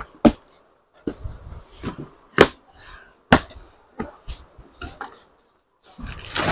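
Cardboard packaging being unpacked by hand: several sharp knocks and taps of cardboard with sliding and scraping between them, then plastic wrapping rustling near the end.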